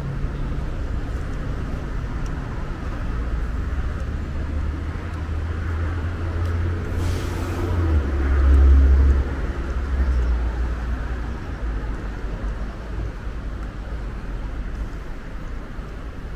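Bus engine running with a low rumble that swells to its loudest about eight seconds in, just after a short hiss of released air.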